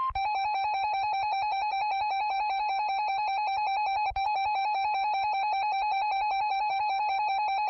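Electronic alert tone from a broadcast warning: a buzzy tone pulsing rapidly and evenly, with a brief break about four seconds in.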